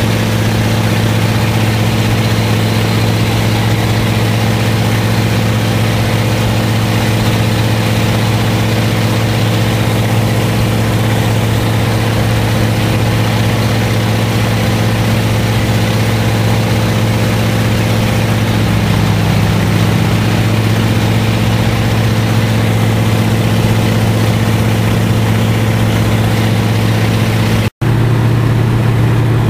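Float plane's engine and propeller droning steadily in flight, heard from inside the cabin as a loud, even low hum. The upper tones shift slightly about two-thirds of the way through, and the sound cuts out for an instant near the end.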